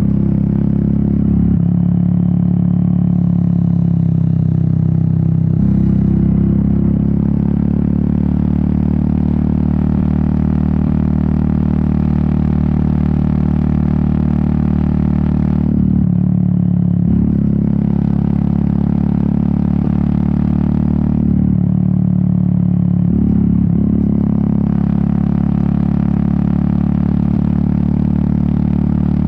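Royal Enfield Meteor 350's 349 cc single-cylinder engine and exhaust running under way. The engine note shifts several times, dropping briefly and picking up again about 16 seconds in and again a few seconds later.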